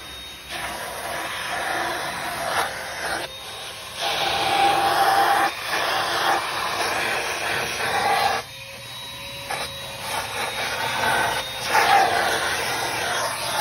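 A 1.5-gallon, 2-horsepower wet/dry shop vac running with its crevice tool, a steady rushing suction noise. The sound drops away briefly twice and comes back as the nozzle is worked along narrow cracks.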